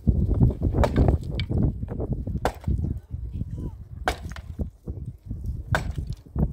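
Sharp striking blows at a steady pace, about one every one and a half seconds, over a constant low rumble.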